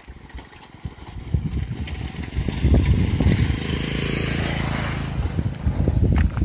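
A motor vehicle passing close by, its engine and tyre noise swelling over a couple of seconds and easing off near the end, with wind buffeting the microphone in low thumps.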